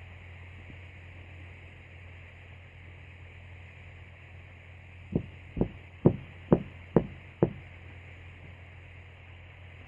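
Six sharp knocks in quick succession, about two a second, starting about five seconds in, over a steady low hum and hiss.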